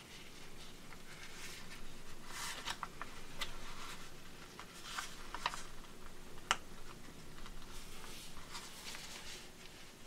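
A sheet of paper being folded by hand: soft rustling with sharp crinkles as the creases are pressed down, the crispest about two and a half, five and a half and six and a half seconds in.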